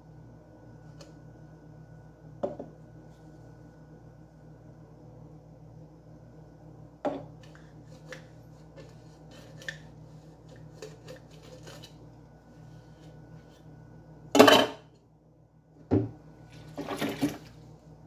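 Plastic cups being hand-washed with a soapy sponge: scattered light knocks and rubbing, with a sharp clatter about fourteen seconds in and another knock and rattle near the end, over a steady low hum.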